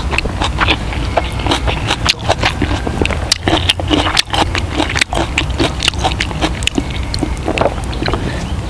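People eating the grilled fish: a quick irregular run of clicks and knocks from chewing and handling food, over a steady low rumble.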